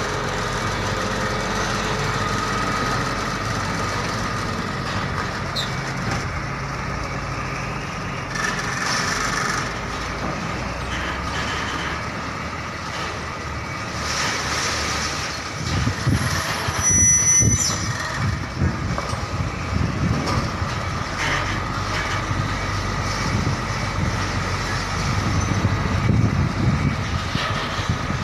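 Diesel engine of a Hino tractor unit running as it reverses a container semi-trailer, with a reversing beeper sounding. The engine gets louder and rougher about halfway through.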